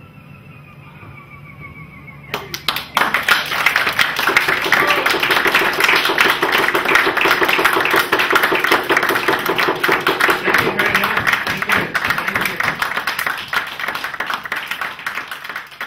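Audience applause breaks out about two and a half seconds in, after a short lull following a chanted note, and continues steadily, easing off slightly near the end.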